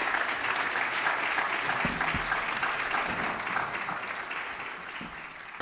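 Audience clapping, a dense sustained applause that thins and dies away near the end.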